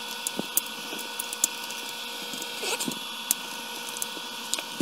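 Scattered small clicks and taps of hands handling plastic RC truck chassis parts and wiring, with a brief scraping rustle a little before three seconds, over a steady background hum and hiss.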